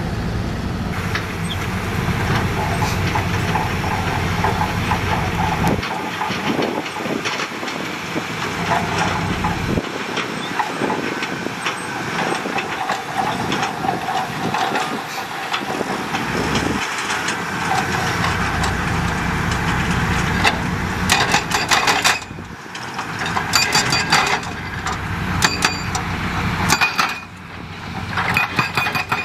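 Heavy diesel construction machinery working: an engine running steadily under repeated knocks and clanks, which come thickest in the last several seconds.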